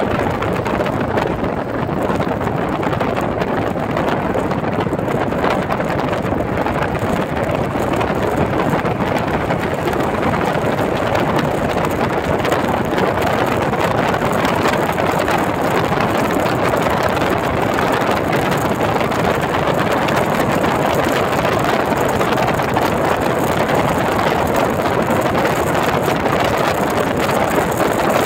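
Steady road and wind noise from a car cruising at highway speed, heard from inside the car: an even rushing with no distinct engine note or knocks.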